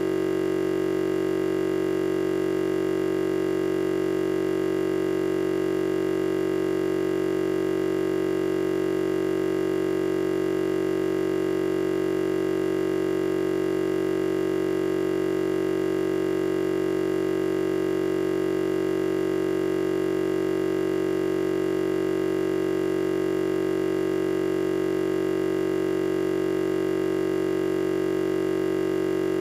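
A steady, unchanging electronic drone: one strong low hum with fainter overtones above it, held at the same pitch and level throughout without any break.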